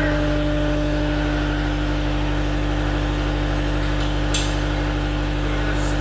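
Cat 279D3 compact track loader's diesel engine idling steadily, with a single sharp click about four seconds in.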